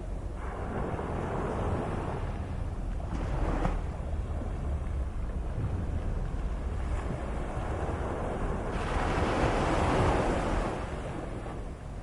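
Medium sea waves washing in and drawing back over a steady low rumble of surf. Two waves swell up, one in the first few seconds and a louder one about nine seconds in.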